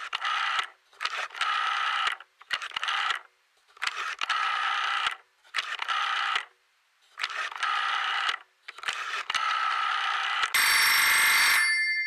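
Telephone ringing in repeated bursts with short silent gaps between them. Near the end comes a louder burst of noise with steady high tones.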